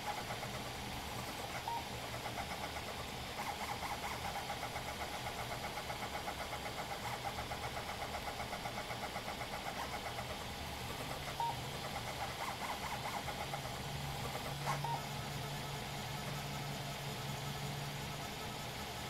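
Stepper motors of a converted Hypercube 3D printer driving the print head at high speed, a whining buzz that pulses rapidly and rhythmically as the head darts back and forth, over a steady low hum. A couple of sharp clicks stand out about 11 and 15 seconds in.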